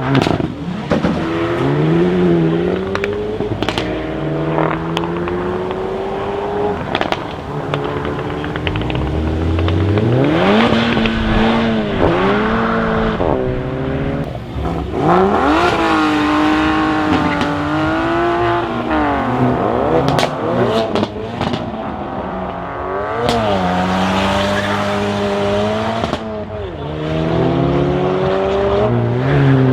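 Hyundai i30 N's turbocharged four-cylinder engine through an Akrapovic exhaust, accelerating hard several times, its pitch climbing and dropping with each gear change and lift-off. Sharp exhaust crackles and pops are scattered between the pulls.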